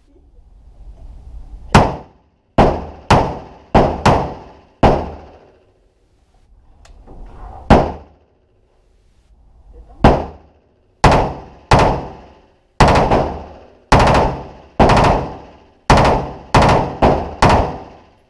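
HK416 rifle firing about seventeen single shots at an uneven pace, some in quick pairs and runs, with pauses of up to about three seconds between groups. Each shot has a short ringing tail from the enclosed shooting booth.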